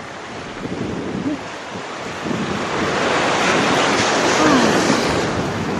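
Sea waves washing onto the rocks of a seawall, one surge swelling in a little after two seconds and loudest around four seconds in, with wind buffeting the microphone.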